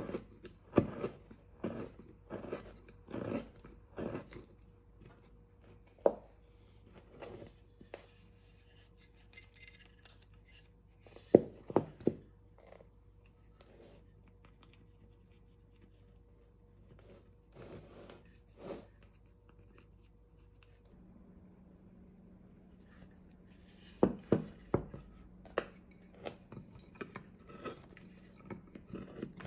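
Hand carving gouge paring into hard wild cherry wood: sharp, short cutting strokes in quick clusters, with a quieter, sparser stretch in the middle before the cuts pick up again near the end.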